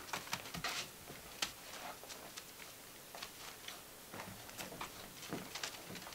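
Gordon Setter puppies scuffling and tugging at a plush toy on newspaper-covered carpet: scattered light clicks and brief rustles at irregular times.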